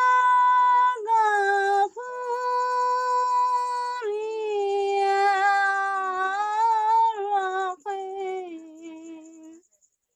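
A woman singing the closing phrase of a Bengali Islamic gajal solo, with no accompaniment. She draws it out in a few long, slightly wavering held notes, then fades and stops shortly before the end.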